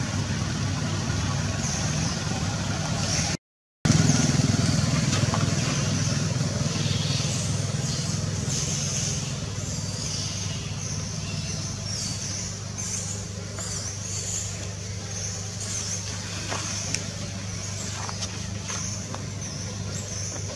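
A motor vehicle engine running nearby, a steady low rumble. It cuts out briefly a few seconds in, comes back louder, then slowly eases off.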